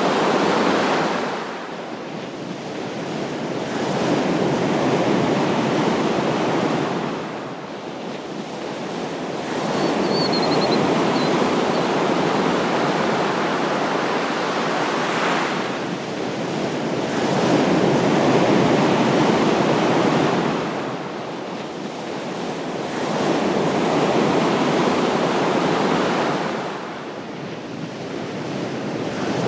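Ocean surf washing in and out: a continuous hiss that swells and fades roughly every five to six seconds as waves break and draw back.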